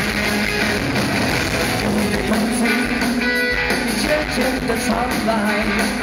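Live rock band playing loudly, with electric guitars and a drum kit.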